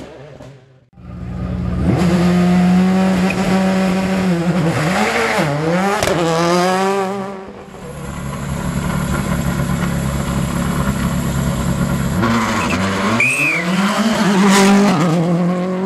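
World Rally Car engines running at high revs on a tarmac stage. The note is held, dips and recovers about five seconds in, drops away, then rises again towards the end, with a brief tyre squeal.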